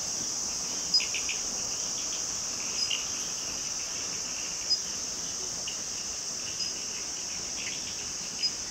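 A steady, high-pitched chorus of trilling insects such as crickets. Short chirps rise above it here and there, and a brief pip repeats about every two seconds.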